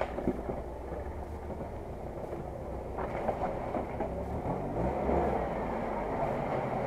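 UAZ-469 off-road truck's engine running under load as it crawls up a muddy, rocky stream bed, getting louder from about three seconds in.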